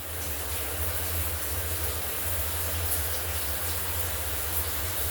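Shower running: a steady rush of water spray, with a low rumble underneath.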